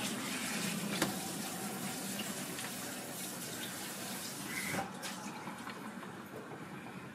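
Thick cake batter pouring in a steady stream from a large stainless-steel bowl into a parchment-lined sheet pan: a soft, even hiss of flowing liquid that slowly fades, with a light knock about a second in.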